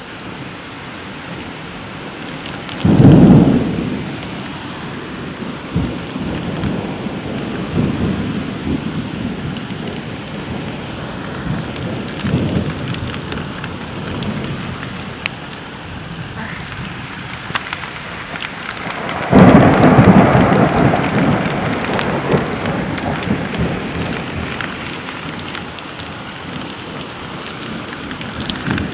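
Rain falling steadily through a thunderstorm, with two loud thunderclaps, the first about three seconds in and the second, longer one near twenty seconds in, and lower rumbles of thunder between them.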